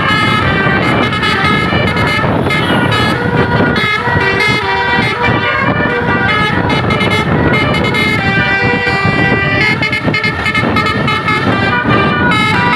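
Bus basuri telolet horns playing a stepping multi-note melody, several horn tones sounding together, over the low rumble of the bus.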